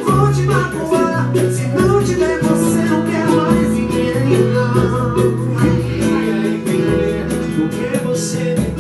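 Live band playing a song: strummed guitar, keyboard and a steady bass-and-drum beat under a male lead vocal.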